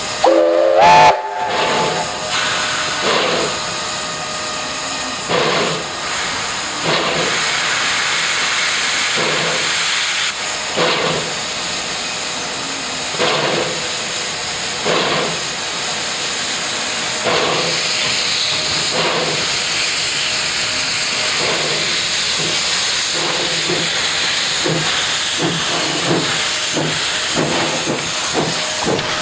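Steam locomotive hissing steam steadily, with slow rhythmic chuffs about every two seconds. A short whistle toot rises in pitch in the first second.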